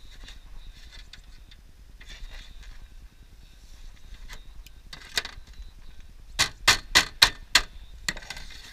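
Hand tools working aluminium roofing sheet: light clicks and scrapes of the metal being bent, then a quick run of five sharp taps, about four a second, near the end, most likely a hammer tapping the folded aluminium flashing into place.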